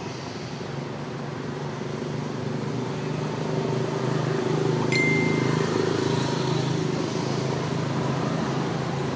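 Steady motor hum, with several even low tones over a noise haze, growing louder over the first few seconds. A thin, steady high tone joins about five seconds in.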